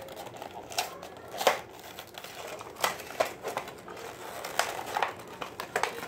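Cardboard and plastic blister packaging being handled and pulled apart: irregular crinkling and crackling with several sharp cracks.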